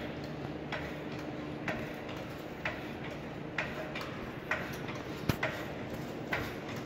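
Hydraulic floor jack being pumped to lift the front of a car: a click with each stroke of the handle, about one a second.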